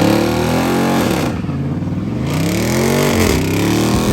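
Car engine revving, its pitch rising and falling several times in a row.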